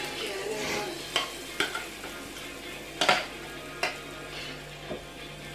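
A spoon scraping and clicking against a glass mixing bowl as thick waffle batter is scooped onto an electric waffle maker, with a few sharp clinks (the loudest about three seconds in) over a steady sizzle from batter on the hot plates.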